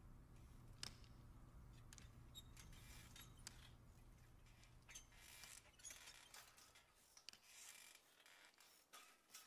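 Near silence: faint scattered clicks and soft scraping over a low hum that fades out about halfway through.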